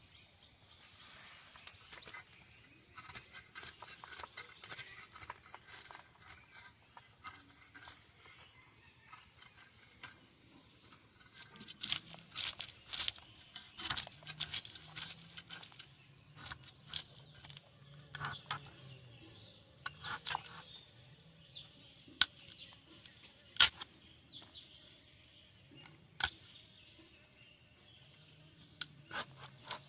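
A rohu fish being cut with a blade: irregular sharp clicks and scrapes of the knife against the fish and the surface beneath it.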